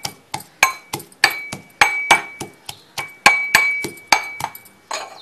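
Metal pestle pounding garlic cloves in a metal mortar: sharp clinking strikes about three a second, each with a brief metallic ring. The pounding stops near the end.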